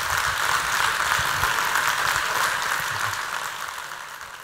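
Audience applauding: dense, even clapping from many hands that fades away near the end.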